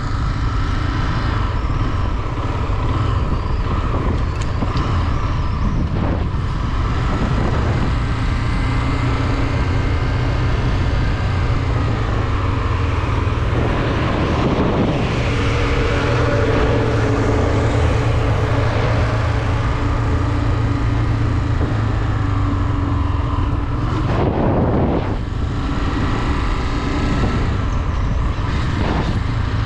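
Honda CB 250F Twister's single-cylinder engine running steadily while riding, its pitch shifting a little with the throttle, over a constant rush of noise.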